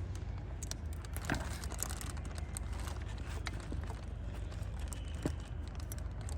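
Scattered light clicks and crinkly handling noises as old rubber gaskets are pulled out of an oil filter housing by hand, over a steady low hum.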